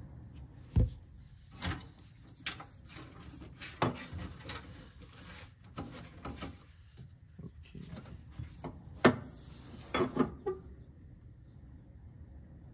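Hands working with tools and gas-pipe fittings: scattered clicks, taps and clinks, the sharpest about a second in and again about nine seconds in.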